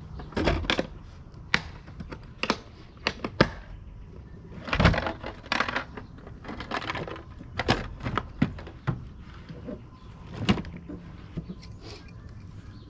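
Irregular knocks, clicks and clatter, about a dozen sharp impacts with a couple of longer rustling scrapes near the middle, from fishing gear being handled in a bass boat.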